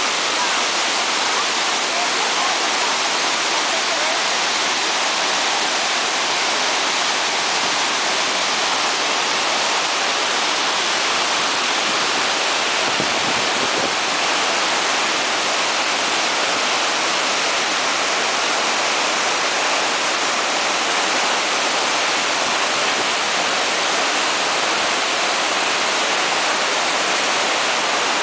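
Salto San Martín, a large waterfall of Iguazú Falls, pouring down close by: a steady, unbroken rush of falling water, heavy in the hiss and light in the low end.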